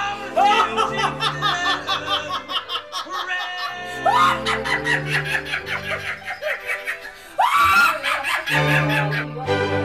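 Background music overlaid with screaming and laughter. Three loud rising-and-falling wails come a few seconds apart, then the music carries on alone near the end.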